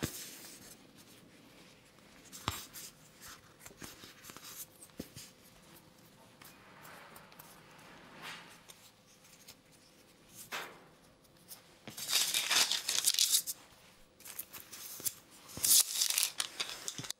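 Hands working soft bagel dough on a wooden board: quiet rubbing and pressing with a few light taps. Baking paper then rustles and crinkles louder, twice, as the dough ring is set onto a square of it near the end.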